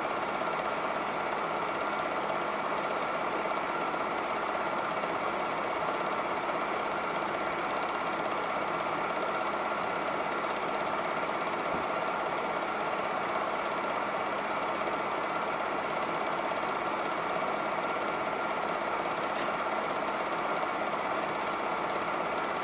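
Super 8 film projector running with a steady mechanical whir.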